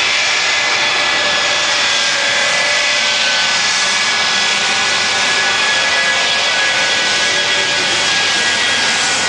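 Shockwave jet truck's three Westinghouse J34 turbojet engines running at a steady, loud roar, with a high whine riding on top.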